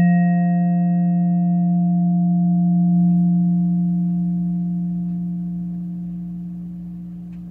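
Vibraphone chord left to ring at the end of the piece: its higher tones die away within about two seconds, while a low note keeps sounding and slowly fades.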